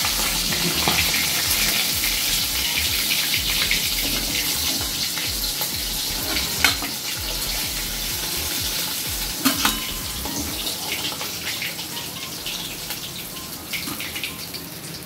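Rohu fish steaks sizzling in hot mustard oil in a kadai, the sizzle slowly dying down as the fried pieces come out of the oil. A few sharp clinks of a metal spatula on the pan and steel plate, about six and a half and nine and a half seconds in.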